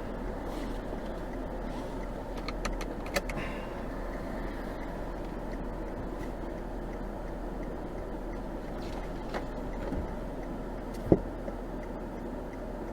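Steady noise inside a car's cabin with the car running, with a few light clicks about three seconds in and one sharp knock near the end.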